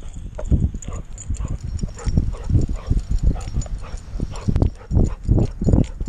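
A camera harness on a dog's back jolting with each stride as the dog trots and runs on grass: rhythmic thumps, a couple a second, with the dog's panting close to the microphone.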